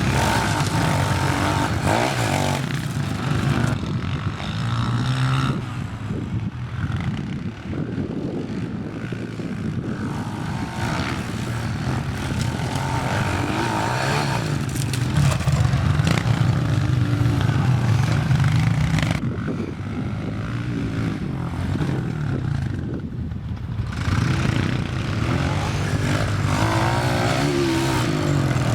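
Small single-cylinder four-stroke pit bike engines running and revving, their pitch rising and falling as the bikes are ridden.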